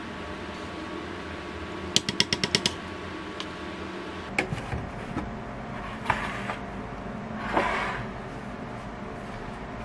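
Yogurt being spooned from a tub into a plastic blender jar: a quick run of about eight light clicks about two seconds in, then a few scattered knocks of kitchenware and a short scrape about three-quarters through, over a steady faint hum.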